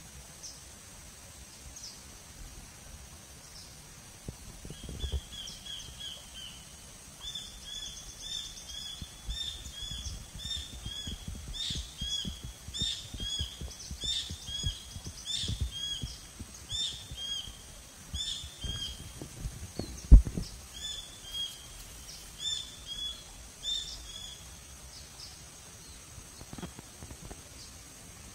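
A bird calling in a rapid series of short, repeated high chirps, starting about five seconds in and stopping a few seconds before the end, over a faint steady high-pitched drone. A sharp low thump about twenty seconds in is the loudest sound.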